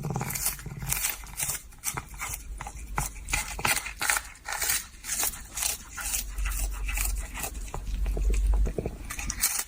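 Rapid irregular scratching and clicking over a low rumble.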